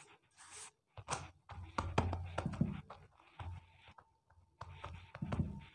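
Hands pressing and patting stuffed paratha dough flat on a pastry board: a run of light taps and clicks with soft dull thumps, the thumps bunched in the middle and again near the end.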